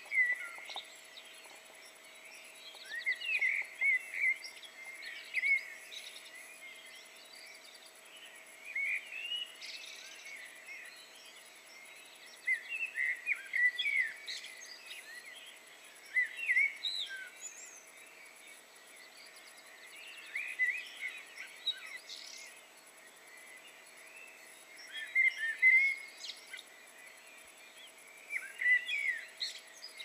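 Songbirds singing at dawn: short phrases of quick chirps and whistled notes that come every few seconds with pauses between them, over a faint steady background.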